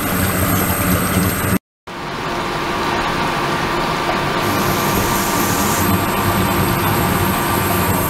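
Water pouring from a hose and churning in a flow-through ultrasonic tank, over a steady machine hum. The sound cuts out for a moment just before two seconds in, then resumes with a steady tone added.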